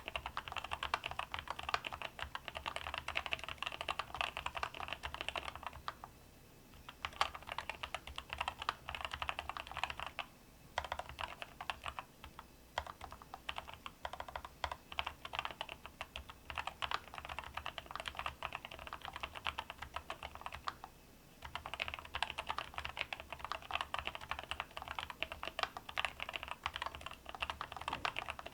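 Typing on a NuPhy Air96 V2 low-profile mechanical keyboard with Wisteria switches: fast, steady keystrokes broken by a few short pauses.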